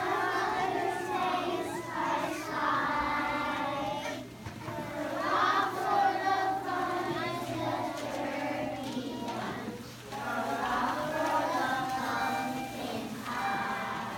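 A group of young children singing a song together in unison, in phrases with short breaks about four seconds and ten seconds in.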